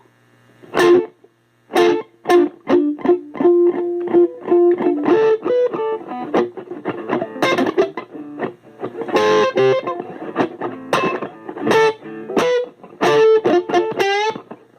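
Guitar playing a melody of single picked notes, some repeated and held briefly, with a short pause about a second in.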